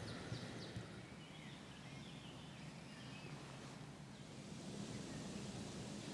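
Faint outdoor lakeside ambience: a steady low rumble with a few faint bird chirps about one to three seconds in.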